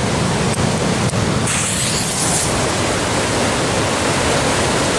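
Steady rushing of sea surf and wind noise, with a brief high hiss about one and a half seconds in.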